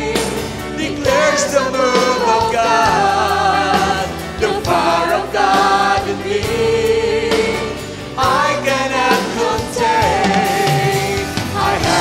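Live worship band playing a gospel praise song, with women's voices singing the melody over electric guitar and percussion, held notes wavering with vibrato.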